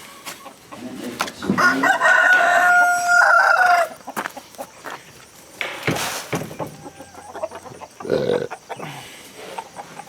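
A rooster crows once, a single held call of about two seconds starting about a second and a half in. Scattered knocks and a short lower chicken call follow.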